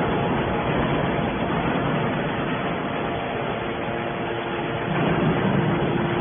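Hydraulic steel can baler running, its pump and motor making a steady mechanical noise with a faint hum.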